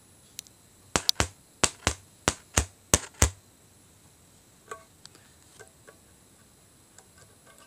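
Old loudspeaker driver clicking as a 9-volt battery is tapped on and off its terminals, each contact jolting the cone: nine sharp clicks in quick succession about a second in, then a few much fainter ticks.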